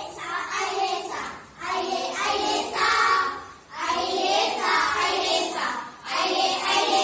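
A group of children singing a Tamil action song together, in phrases of a second or two with short breaks between them.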